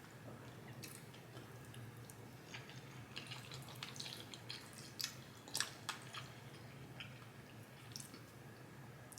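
Faint chewing and small wet mouth clicks of someone eating, thickest from about three to six seconds in, over a low steady hum.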